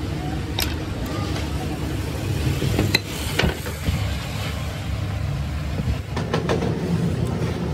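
A few sharp metallic clicks and taps as the steel carrying handle of a Blackhawk hydraulic bottle jack is fitted and knocks against the jack's steel body: one just over half a second in, two around three seconds in, and a quick cluster around six and a half seconds. A steady low rumble runs underneath throughout.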